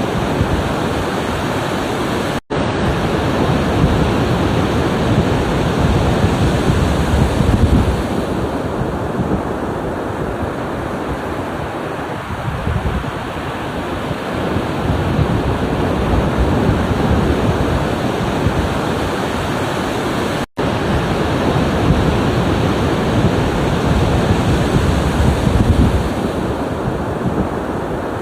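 Ocean waves breaking and washing ashore, a continuous rush that swells and eases with each set. Twice the sound drops out for a split second.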